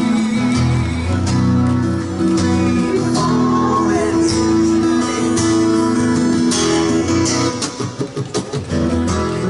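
A street musician strumming an acoustic guitar. The strumming turns choppier, with short separate strokes, near the end.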